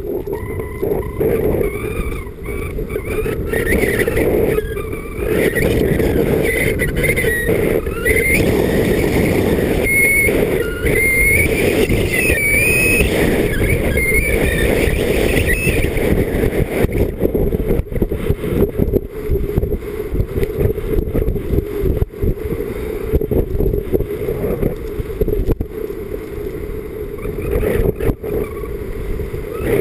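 Wind buffeting the camera microphone while skiing fast downhill, together with skis running and scraping over the groomed snow. A wavering high squeal comes through the first half.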